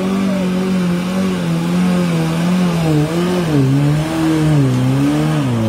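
Lifted off-road pickup's engine running loudly as the truck crawls through mud; the engine note sinks slowly, then rises and falls several times with the throttle in the last few seconds.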